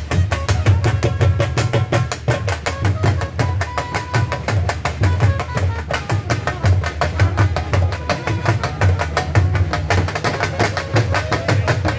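Dhol drumming in a fast, steady rhythm, deep bass strokes pulsing under sharp stick strokes, with sustained melodic notes above.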